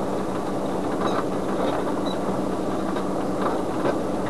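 Vehicle engine running steadily with tyre and road noise on a rutted dirt road, heard from inside the cabin, with occasional light rattles.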